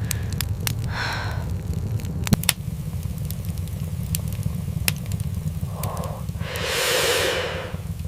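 Scattered sharp crackles over a steady low rumble, with a short breath about a second in and a long, louder breath out near the end.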